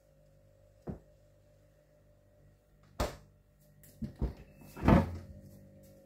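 Knocks and thunks from a Candy fridge-freezer's door being handled, the loudest just before five seconds in as the door is pulled open, over the appliance's steady hum. The owner says the fridge has run without stopping ever since it was plugged in.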